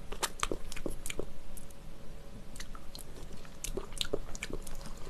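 Close-miked wet mouth sounds, lip smacks and small clicks, as jajangmyeon is tasted off a chopstick, scattered irregularly; near the end, chopsticks clicking in the bowl of noodles.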